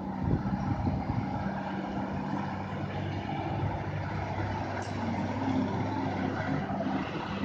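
Heavy truck's diesel engine running at steady low revs as it crawls through a tight hairpin, a deep even hum. A brief high squeak sounds about five seconds in.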